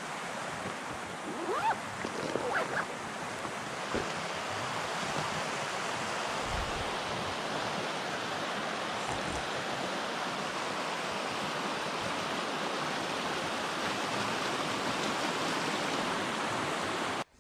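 Shallow rocky stream rushing steadily over stones in small rapids. A few short squeaks and rustles of gear being handled in the first few seconds.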